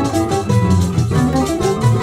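Instrumental corridinho played on bandolim (mandolin) with acoustic guitar or cavaquinho and percussion: a quick plucked melody over moving bass notes.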